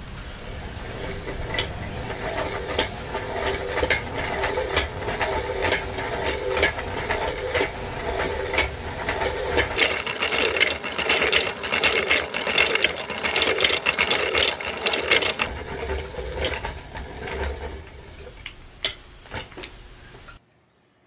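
Wooden thread reel spinning on a thread-winding machine as teal thread winds onto it: a rapid rattling whir with many small clacks, busiest midway, thinning to a few separate clacks before it cuts off abruptly near the end.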